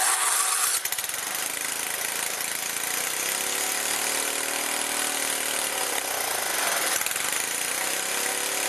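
A small garden tractor's replacement engine, taken off another snowblower, running loud and steady just after being started. Its pitch rises a little and falls back in the middle as the hand throttle is worked.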